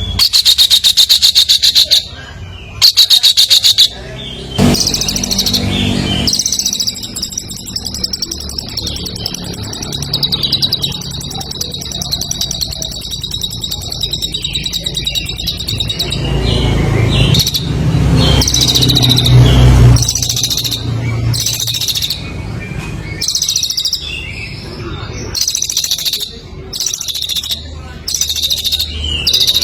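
Caged songbird singing a loud, fast, buzzy trilling song in repeated bursts, including a long unbroken trill in the middle: the intense 'gacor' song of a competition bird, used as master song for training other birds.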